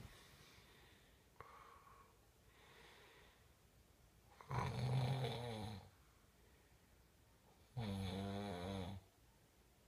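Snoring: two loud, drawn-out snores about three seconds apart, each lasting a little over a second, with fainter breaths before them.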